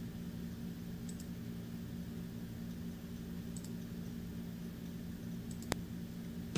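Steady low hum and background hiss, with a few faint clicks scattered through and one sharper click near the end.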